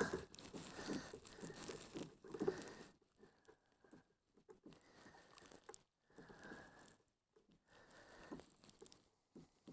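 Faint scraping and small clicks of a Phillips screwdriver working a screw out of a plastic car door panel, in short spells with quiet gaps between.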